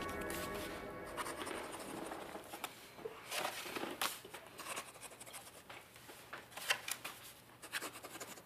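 Soft background music fading out, then faint intermittent scratching and rustling with a few small clicks, as of small handling noises.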